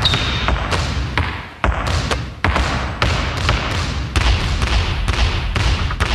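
Basketball dribbled on a hard hallway floor, a sharp bounce about every half second over a steady low rumble.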